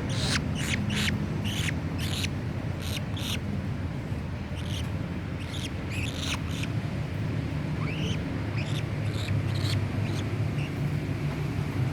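Pet bird giving a series of short, sharp chirps, quick and frequent for the first few seconds and then more spaced out, over a steady low background hum.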